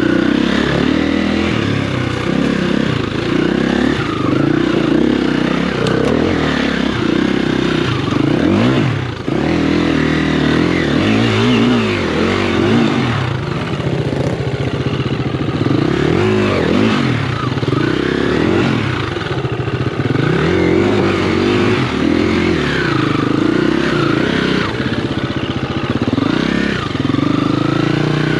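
Motocross dirt bike engine being ridden hard, revving up and dropping back over and over as the throttle is opened and closed.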